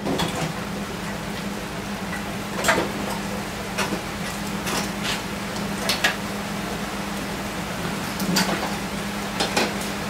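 SN95 Mustang wiring harness being pulled out through the driver's door opening: scattered sharp clicks and rattles of plastic connectors and wires knocking against the car body, about eight times. Underneath, a steady hiss of rain and a low hum.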